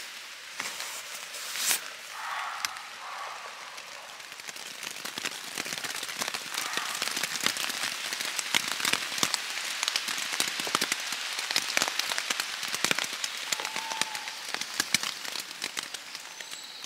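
Rain hitting the fabric of a Lanshan Pro 1 tent, heard from inside: a steady hiss of rain with many sharp taps of single drops. It grows heavier about four seconds in.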